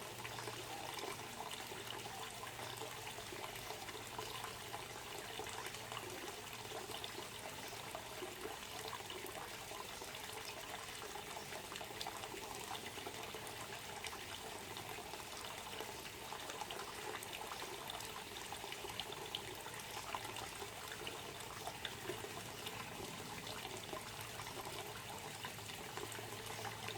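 Water trickling steadily, a continuous run of small splashes.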